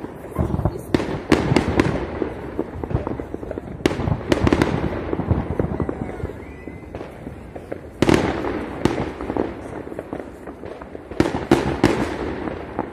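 New Year's fireworks going off: sharp bangs and crackles in clusters every few seconds, with a rumbling decay between the volleys.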